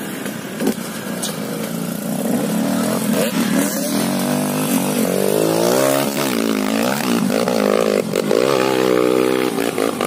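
Two-stroke dirt bike engine revving hard under load on a steep dirt climb, its pitch rising and falling again and again as the throttle is worked.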